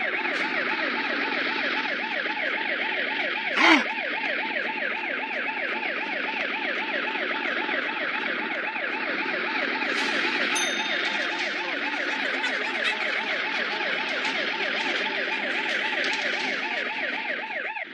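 Cartoon police-car siren sound effect in a fast, even up-and-down warble, which cuts off right at the end. A short, loud knock sounds about four seconds in.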